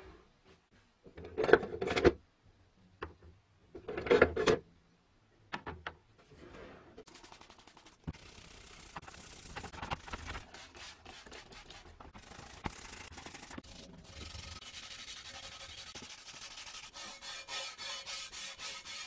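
A green scouring pad scrubbing wet, rusty steel parts of a vintage scale, a continuous fast rasping rub that starts about seven seconds in and grows denser toward the end. Before that come two short, louder bursts of handling noise at the plastic tub.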